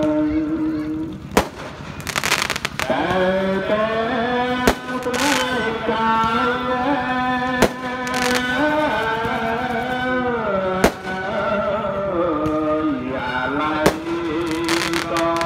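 Fireworks going off in sharp single bangs, five of them about every three seconds, most followed a moment later by a short hissing crackle. Underneath runs music with a long held melody that slides between notes.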